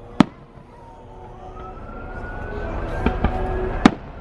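Fireworks display: aerial shells bursting with sharp bangs, one just after the start, two smaller ones about three seconds in and the loudest just before the end, over a long tone that rises slowly in the background.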